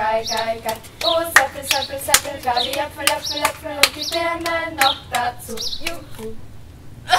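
Voices singing a German children's clapping-game song, with hand claps landing in time with the beat, about two to three a second, as the clap is passed around the circle.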